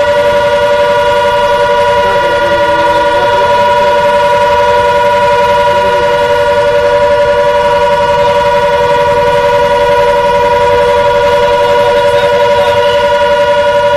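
Civil-defence warning siren sounding a loud, steady held tone without a break, a precautionary alert during a blackout.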